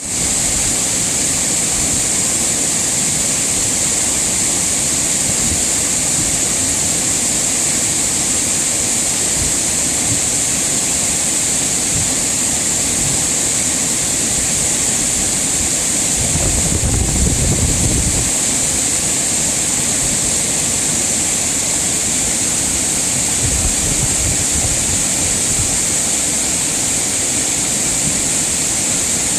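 Mountain stream rushing steadily over rocks, a continuous loud hiss of water. A brief low rumble about halfway through.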